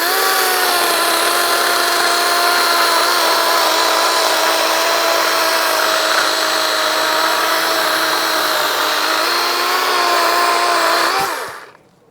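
DeWalt 20V Max XR brushless cordless chainsaw spins up at once and runs with a steady electric whine while cutting through a dry pine log. Its pitch dips briefly near the end, then it winds down and stops about a second before the end.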